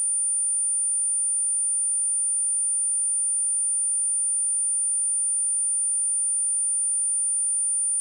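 A steady, high-pitched pure sine-wave test tone at 9251 Hz, one unchanging pitch at a constant level, generated electronically for testing or clearing dust and water from a speaker.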